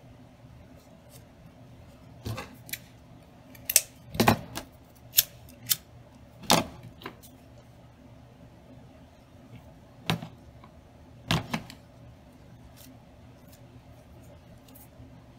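Sharp clicks and knocks as a hot glue gun and small ribbon pieces are handled over a cutting mat: a cluster of several in the first half, then a few more about two-thirds through.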